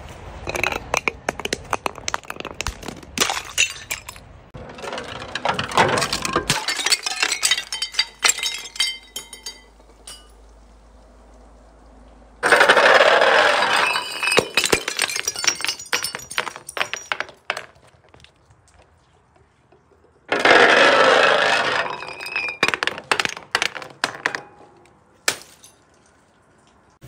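Bottles tumbling down stone stairs: a run of sharp knocks and glassy clinks as they strike the steps, with two loud stretches of crunching and breaking, one about halfway through and one about two-thirds of the way through.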